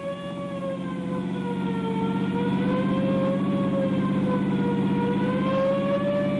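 Ambulance siren wailing, its pitch wavering slowly up and down, over a low steady drone. It grows louder over the first couple of seconds, then holds.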